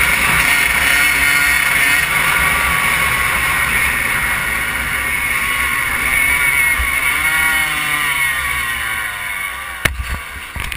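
Kawasaki KX100 two-stroke dirt bike engine running while riding, the revs dipping and climbing again about seven seconds in. The engine fades toward the end, with a sharp knock about ten seconds in.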